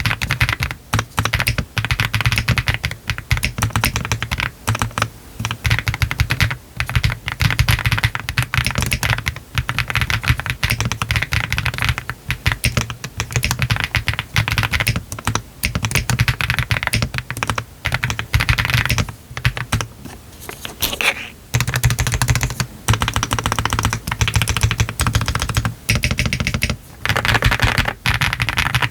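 Typing on a Meletrix ZOOM TKL mechanical keyboard fitted with Y3 switches and all its foams, on a PC flex-cut plate with PBT keycaps: a fast, continuous run of keystrokes. There is a short pause about twenty seconds in.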